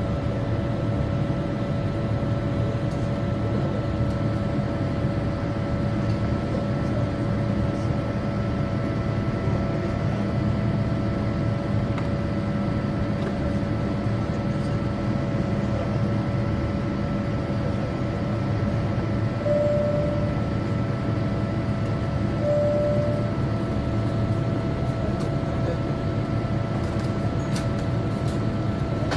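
Steady jet engine and rushing air noise inside a Boeing 787 cabin during the climb after take-off, with a constant hum of several steady tones. Two short beeps sound about three seconds apart past the middle.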